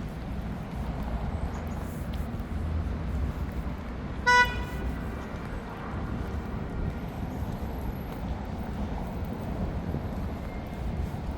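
Steady rumble of passing road traffic, with one short, loud car horn beep a little over four seconds in.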